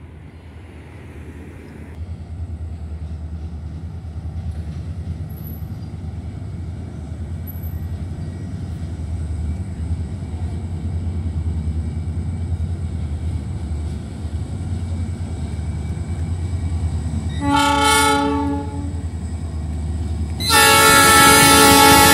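Freight train led by an EMD JT26CW-2B diesel locomotive approaching, its low engine rumble building steadily. It sounds its horn with a short blast about three-quarters of the way through, then a long, loud blast near the end.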